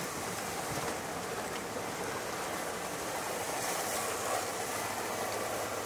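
Four-wheel-drive truck fording a creek: a steady rush and splash of water thrown up around the tyres, with the vehicle's running noise underneath.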